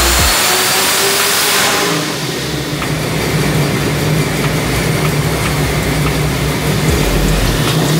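ProCharger-boosted small-block Ford V8 in a Fox-body Mustang running on a hub dyno. For the first two seconds a loud rushing hiss with a faint high whine covers it. After that the engine runs steadily at low speed.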